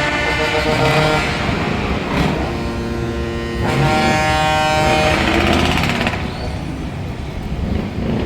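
Loud truck engines running, with sustained air-horn tones sounding over them and changing pitch every second or so.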